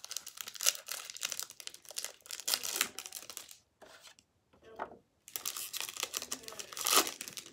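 Plastic foil wrapper of a Topps 2021 baseball card pack crinkling and tearing as it is opened by hand. There is a short lull about halfway through, and the loudest crackle comes near the end.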